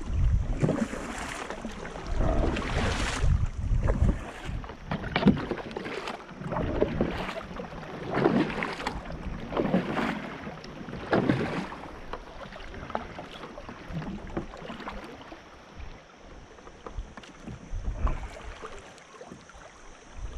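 Kayak paddle strokes dipping and swishing through swift river water, about one stroke every second and a half. Wind buffets the microphone during the first few seconds.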